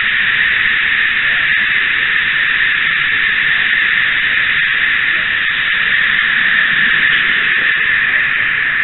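Steady high-pitched hiss and rolling noise picked up by a small camera riding on a moving N-scale model train car, with a few faint clicks.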